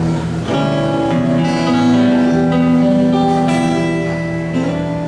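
Acoustic guitar strumming chords, with a new chord struck about once a second over steady low bass notes.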